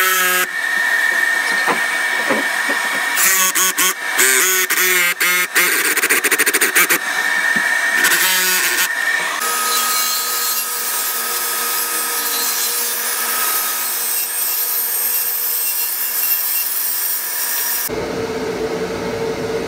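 A jigsaw running and cutting through a wooden door, its pitch shifting as it works, followed by a plunge-cut track saw running steadily along its guide rail through the door. Near the end the sawing stops abruptly and a steady machine hum takes over.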